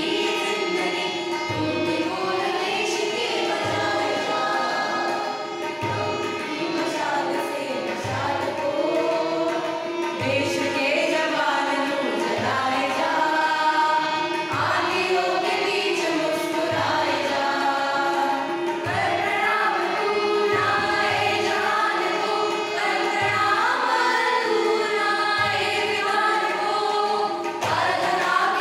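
Group of voices singing a Hindi patriotic song in unison, over a regular low beat about every second and a half.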